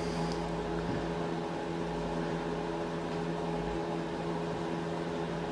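Steady background hum of a running motor, one constant pitch with its overtones and a light hiss, unchanging throughout.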